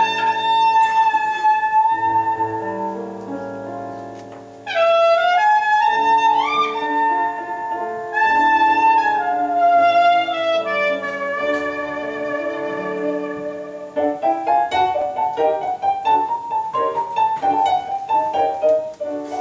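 A klezmer freylech played live on clarinet with piano accompaniment. The clarinet holds long notes with sliding, swooping bends, including a sharp upward swoop about five seconds in. From about two-thirds of the way through, the playing breaks into quicker, shorter notes.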